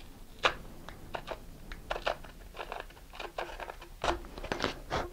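A 5/32-inch drill bit turned by hand in a drilled hole in a cardboard rocket body tube, scraping and crunching in short irregular bursts as it clears the hole out.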